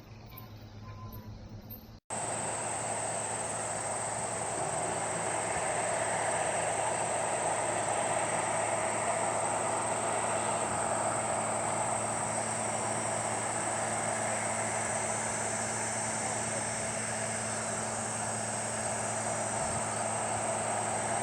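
Insects chirring in a steady high-pitched drone over a constant rushing noise, which begins after a sudden cut about two seconds in.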